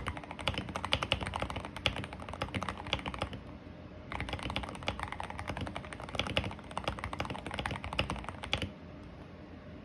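Fast typing on a custom KBD67 Lite R2 mechanical keyboard with tape-modded PCB, lubed linear switches and ZDA Matcha keycaps, giving a low, muted clacking. The typing pauses briefly a few seconds in, resumes, and stops near the end.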